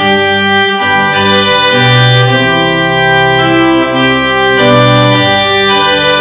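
Organ music: held chords over a bass line that steps to a new note every second or so.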